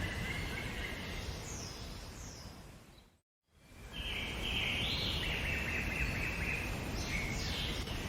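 Birds calling and singing over a steady outdoor background noise. Short falling calls come early. The sound fades out and drops to silence for a moment about three seconds in, then a longer warbling bird song follows.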